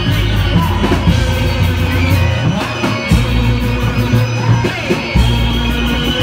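Loud music accompanying a Reog Indramayu street performance, with a deep, steady bass line under pitched instruments.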